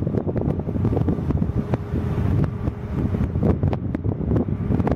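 Wind buffeting the microphone with frequent crackling pops, over the steady low rumble of a Boeing 737 airliner's jet engines on final approach.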